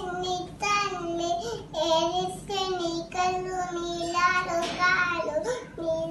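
A two-and-a-half-year-old girl singing a lullaby in a small child's voice, with long held notes in phrases broken by short pauses for breath.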